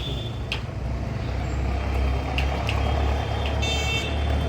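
A heavy vehicle engine running steadily at low revs, with a few sharp clicks and a brief high-pitched tone about three and a half seconds in.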